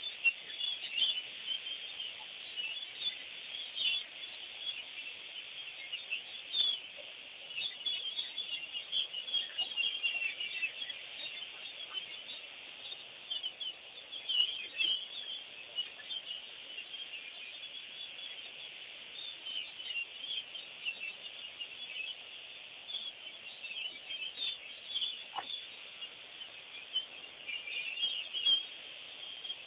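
Many wild birds chirping and calling over one another in a dense, continuous chatter of short calls.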